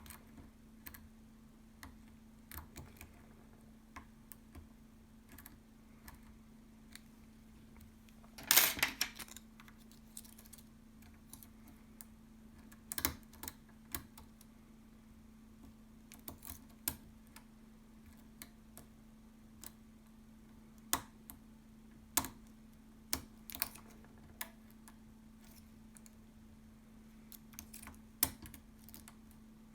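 Lock pick and tension wrench working inside a pin-tumbler lock's keyway: sparse small metallic clicks and ticks as the pins are probed one by one in search of a spool pin, with a louder rattle about eight and a half seconds in. A steady low hum runs underneath.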